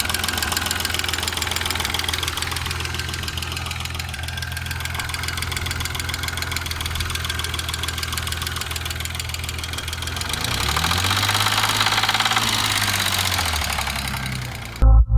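Used 2.6-litre engine running with a hard, rapid knock. About ten seconds in it is revved, held for a few seconds, then drops back toward idle. Loud music cuts in at the very end.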